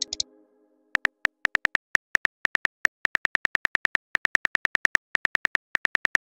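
Simulated phone-keyboard typing clicks: a rapid, uneven run of short, high clicks, several a second, one per letter as a text message is typed out.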